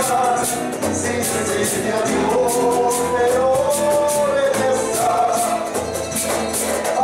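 Live acoustic group playing a Latin American song: several acoustic guitars strumming and a cajón struck by hand keeping a steady beat, with a voice singing a long held melodic line in the middle.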